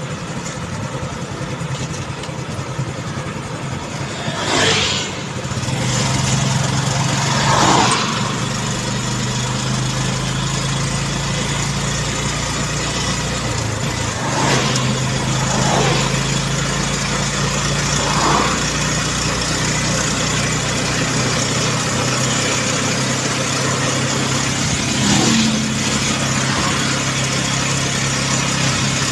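Motorcycle engine running at cruising speed, with wind rushing over the microphone. The engine note rises about five seconds in and then holds steady, and a few brief louder whooshes pass.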